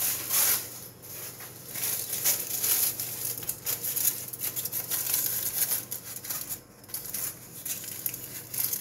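Kitchen aluminium foil crinkling and crackling as it is pulled and pressed over an ice-cream mould to cover it, in irregular crackles.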